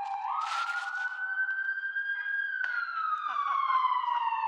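Emergency vehicle siren wailing: its pitch jumps up, holds high, then slides slowly down for about two seconds and jumps up again near the end. A brief rustle about half a second in.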